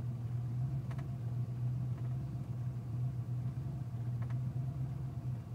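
Ford Mustang 5.0 V8 idling just after a cold start at about 1,000 rpm, a steady low hum with a faint tick about a second in and again about four seconds in. The engine is misfiring and shaking at cold idle, and the owner has not yet found the cause.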